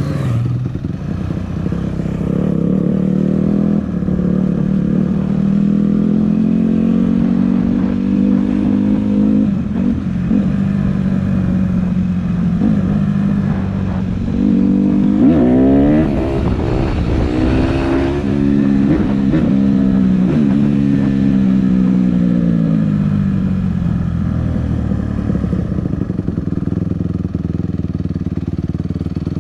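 Honda CRF150R dirt bike's four-stroke single-cylinder engine running while riding, its pitch slowly rising and falling with the throttle. About halfway through it revs up sharply several times in quick succession, then the pitch winds slowly down.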